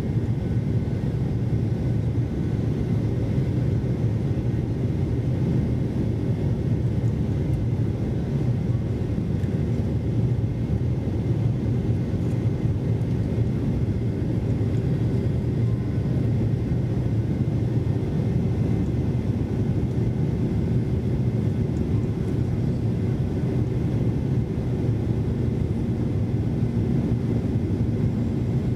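Steady low rumble in the cabin of a Boeing 737-800 climbing after takeoff: its CFM56 jet engines at climb thrust mixed with airflow over the fuselage, heard from a window seat, with a faint steady whine running through it.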